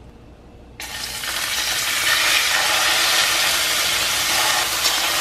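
Diced raw chicken breast sizzling as it goes into hot oil in a stainless steel pan. The sizzle starts suddenly about a second in, builds over the next second, then holds steady as more chicken is spooned in.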